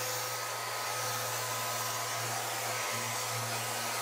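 Festool Rotex RO 90 sander running in eccentric (random-orbit) mode with a 180-grit disc on the round pad, sanding a wooden chair frame for a final smoothing pass. It gives a steady whir and hiss that holds even throughout.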